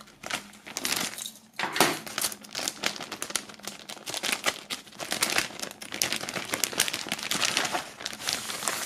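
Clear plastic punched sheet protector crinkling and rustling irregularly as hands handle it and work its contents out, loudest about two seconds in.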